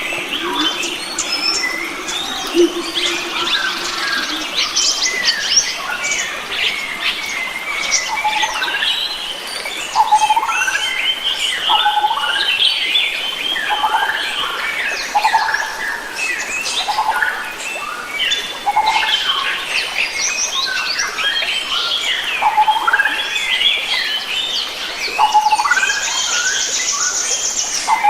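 Chorus of many wild forest birds singing and calling at once: overlapping chirps, whistles and short rising calls, with a high buzzy trill near the end.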